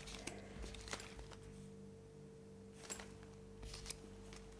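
Faint rustling of small plastic parts bags and light clicks of small parts being handled, a few taps standing out about one, three and nearly four seconds in, over a faint steady hum.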